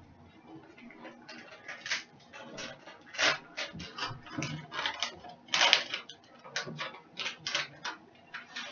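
A plastic bag of shredded cheddar cheese being handled and opened: a run of irregular crinkles and crackles, the loudest about three and five and a half seconds in.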